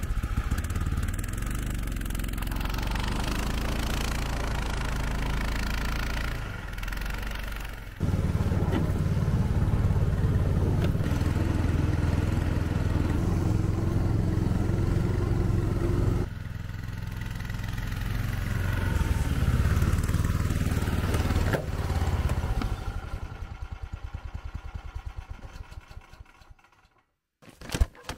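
Snowmobile engine running while riding through snow, a steady drone that jumps abruptly in pitch and loudness twice. Near the end it fades away to quiet.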